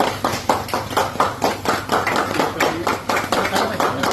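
A small group of people clapping, a steady run of about four claps a second.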